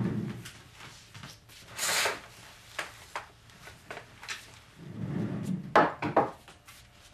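Movement sounds of a person getting up and handling a blanket: a thump and scrape as a desk chair is pushed back, a short fabric swish about two seconds in, then scattered light knocks, steps and rustling, loudest near the end.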